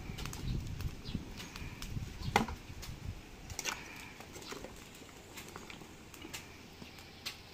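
Hard lokan (mangrove clam) shells knocking and scraping in a metal basin of water as they are scrubbed clean: irregular sharp clicks, the loudest about two and a half seconds in.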